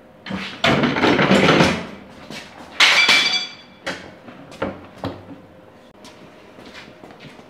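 Metal clatter from handling a motorcycle engine on a floor jack: a rough scraping clatter about a second in, then a sharp metallic clang that rings briefly about three seconds in, followed by a few lighter knocks.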